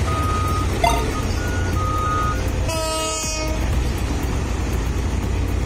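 Heavy mining machinery running with a steady low engine rumble, while a back-up alarm beeps a few times in the first couple of seconds and a horn sounds once, for under a second, about three seconds in.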